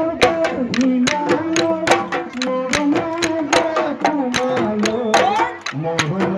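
Folk song with a steady, quick drum beat, a man's voice singing the melody through a handheld microphone.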